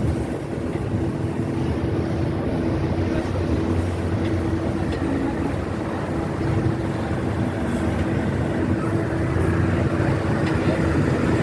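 Steady vehicle running noise: a constant low engine hum over an even rumble, unchanging throughout.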